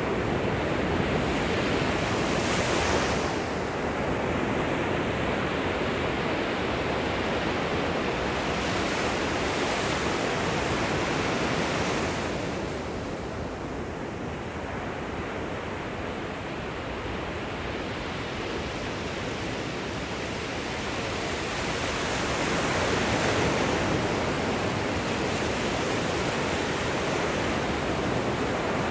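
Gentle ocean surf washing on the shore: a steady rush of waves that swells and eases, with a quieter lull midway before a wave builds again near the end.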